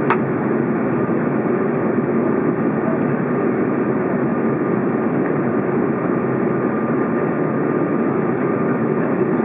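Steady cabin noise of an Airbus A330 in cruise or descent, heard over the wing: engine and airflow rushing, with a faint steady high tone and one light click right at the start.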